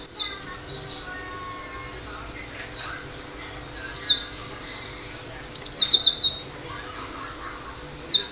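Cinereous tit (gelatik batu) singing in short bursts of sharp, quick, high down-slurred whistled notes. There are four phrases, at the start, about four seconds in, around six seconds and at the end, with pauses of a second or more between them.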